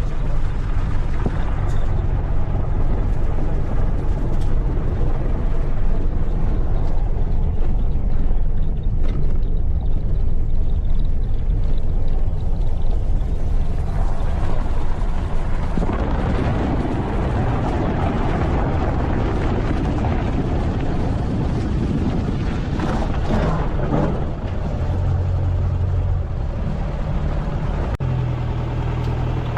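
A motor vehicle driving, with steady engine hum and road noise that grows rougher for several seconds in the middle.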